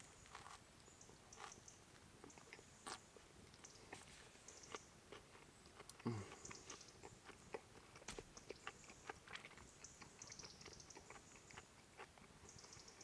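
Faint biting and chewing of a cheeseburger: scattered soft clicks and mouth sounds, with a brief low hum from the eater about six seconds in.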